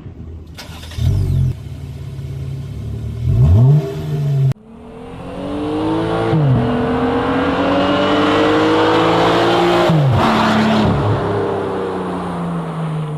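Jeep Wrangler JL engine heard through a Flowmaster Outlaw axle-back exhaust: two quick revs at idle, then, after a sudden break, accelerating with the pitch climbing and dropping twice at gear changes, about six and ten seconds in, before easing off and fading near the end.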